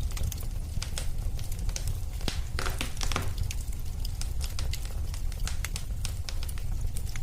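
Wood fire burning in a fireplace: a steady low rumble of flames with irregular sharp crackles and pops, a brief flurry of crackling about three seconds in.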